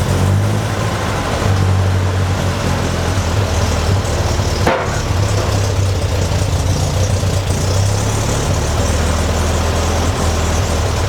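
1955 Ferguson TEA-20 tractor's four-cylinder petrol engine running steadily, newly revived after sitting about 40 years. A brief sharp sound cuts across it about halfway through.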